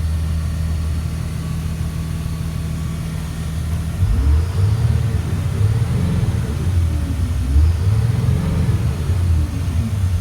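Diesel engine of a 2004 Blue Bird All American school bus, which the seller believes is a Caterpillar 3126. It idles steadily, then from about four seconds in is revved up and let fall back several times. It is fully warmed after an hour of running and, by the seller's account, sounds good.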